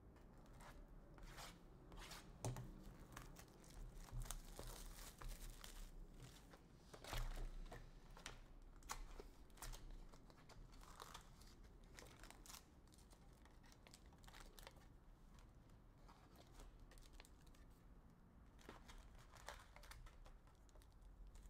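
Faint crinkling and tearing of foil trading-card pack wrappers as hockey card packs are opened, with the cards handled in short, irregular crackles that are busiest in the first half.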